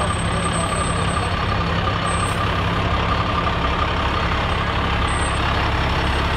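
Heavy vehicle engine running steadily at close range, with a low, even drone and no change in level.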